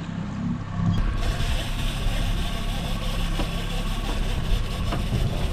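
Boat engine idling at trolling speed, a steady low hum. About a second in, a steady hiss and deeper rumble join it.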